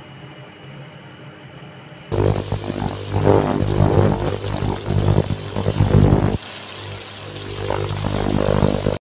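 A motor running, starting suddenly about two seconds in, loud and uneven at first, then steadier and quieter from about six seconds in.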